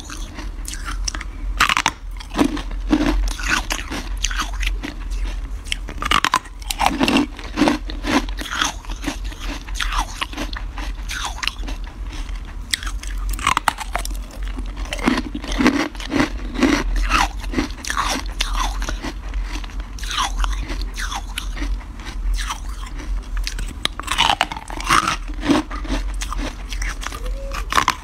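Close-up biting and chewing of powdery carbonated ice blocks: a run of crisp, irregular crunches as the frozen blocks are bitten into and chewed.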